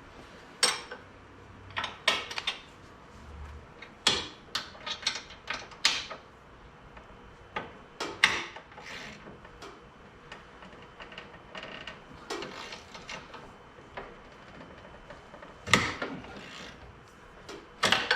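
A hand wrench working on bolts: irregular metallic clicks and knocks as the tool is fitted, turned and set down.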